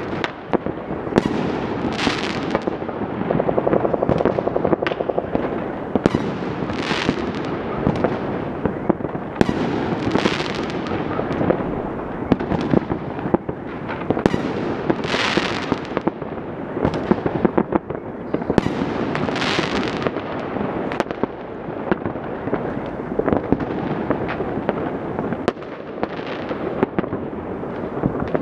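New Year fireworks and firecrackers going off all over a city at once: a dense, unbroken crackle of bangs and pops, with a louder burst every few seconds.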